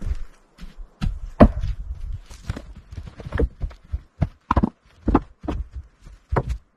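A quick, irregular series of thuds and knocks, about two a second.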